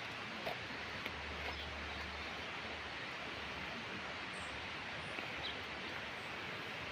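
Steady outdoor background hiss, with a few faint clicks in the first couple of seconds.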